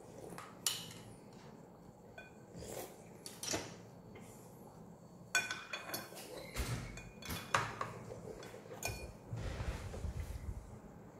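Spoons and forks clinking and scraping on ceramic plates and bowls at a meal table, scattered irregular clinks, some with a short ring, and a few duller knocks on the table.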